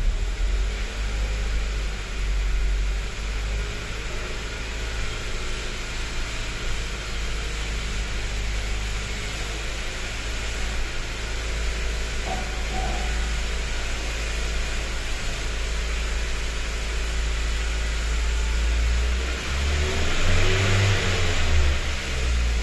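Car engine running steadily, revving up briefly near the end.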